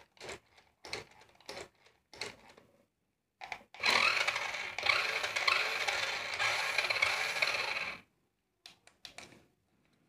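Toy RC monster truck's electric drive motor and plastic gears running with a steady high whine for about four seconds, from about four seconds in, as its wheels spin freely in the air. Before it and near the end come a few light plastic clicks from the handset and the toy being handled.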